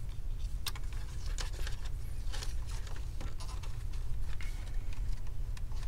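Scattered small clicks and rustling from nitrile-gloved fingers handling a flat ribbon display cable and its plastic connector, over a steady low hum.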